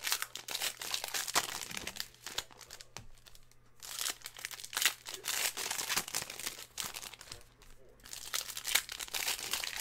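Foil trading-card pack wrapper crinkling while a stack of cards is handled and flipped through: runs of quick crackles and rustles broken by a couple of short pauses.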